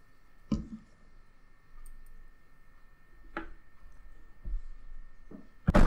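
Scattered clicks and knocks of metal parts on an Anand treadle sewing machine being handled as its tilted-up head is set back down after oiling, with a louder knock near the end.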